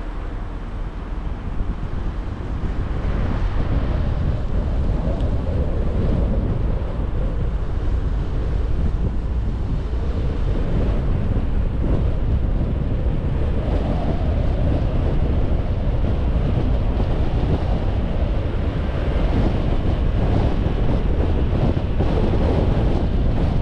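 Wind rumbling on the microphone of a moving car, over the steady tyre and road noise of the car driving along. The rumble is heaviest in the bass and a little quieter in the first few seconds.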